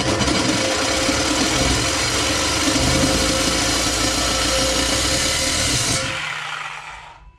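Corded power tool running as it cuts relief slots into the end of a steel exhaust tailpipe: a loud, steady noise that fades out about six seconds in.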